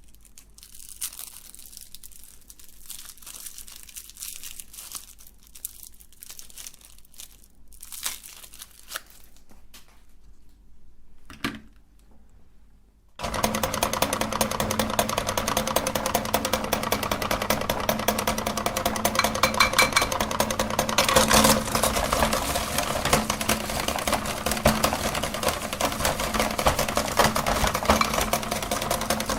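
Crinkling and rustling of plastic wrapping for the first half. About halfway through, an electric meat grinder starts suddenly and runs with a steady hum and a dense rattle of hard-candy lollipops being crushed.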